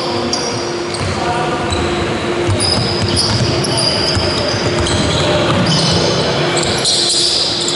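Basketball game: sneakers squeaking on the hall floor in many short, high squeals as players cut and stop, the ball bouncing on the court, and players calling out, all echoing in the sports hall.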